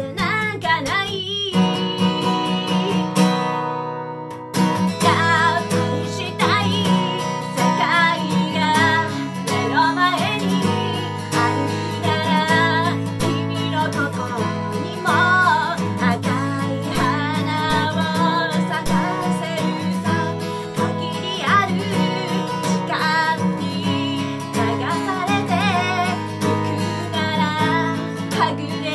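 A woman sings a Japanese pop ballad while strumming chords on a steel-string acoustic guitar with a capo. There is a brief break in the strumming about four seconds in.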